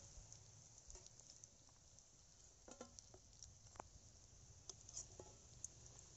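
Faint, scattered clinks and taps of a metal spatula against a steel karahi and plate as fried egg pakoras are lifted out of the oil, one of them ringing briefly about three seconds in.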